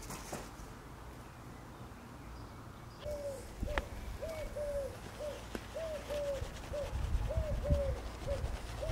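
A pigeon cooing, a repeating phrase of short coos that rise and fall in pitch, starting about three seconds in. Underneath, a low rumble grows louder toward the end, with two sharp clicks.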